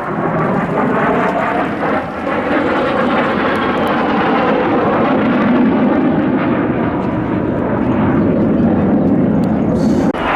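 Kawasaki T-4 jet trainers flying past with loud jet noise, their whine slowly falling in pitch as they pass. The sound breaks off abruptly near the end.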